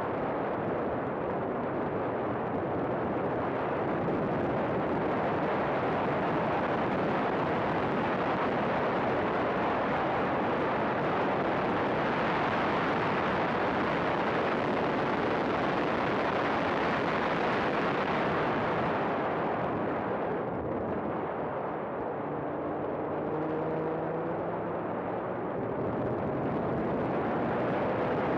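Race car at speed on track: a dense, steady rush of engine, wind and road noise. About twenty seconds in the noise dips briefly, then the engine note climbs steadily as the car accelerates down the straight.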